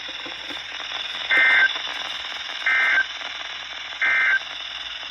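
NOAA Weather Radio's SAME end-of-message code: three short bursts of digital data tones, evenly spaced about 1.4 seconds apart, over steady radio hiss. It marks the end of the warning broadcast.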